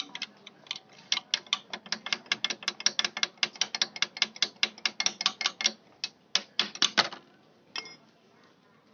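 Ratchet wrench clicking in quick, even strokes, about five or six clicks a second, as the engine oil drain bolt of a two-wheeler is worked loose. The clicking stops about seven seconds in.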